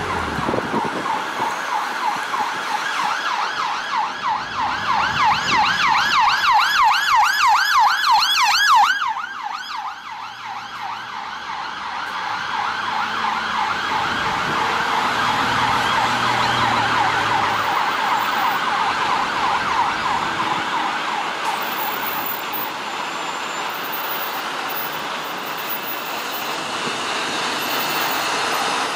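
Police car sirens on a rapid yelp, fast rising-and-falling sweeps growing louder and cutting off sharply about nine seconds in, then another yelp building again and slowly fading, with traffic noise underneath.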